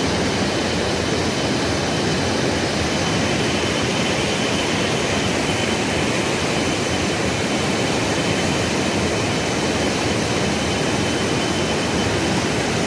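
Steady rushing noise of a swollen river in spate, with no breaks or changes.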